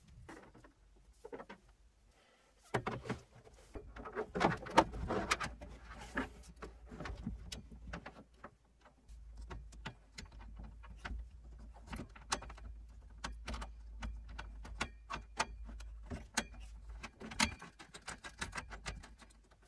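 Hand-tool and wiring handling noise: irregular small clicks, taps and rustles as a ground cable is stripped and its end fastened to a DC-to-DC battery charger terminal, busiest about 3 to 6 seconds in, over a faint low rumble.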